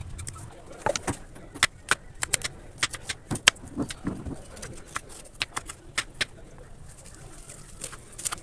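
Irregular sharp clicks and knocks, about two or three a second, over a faint background.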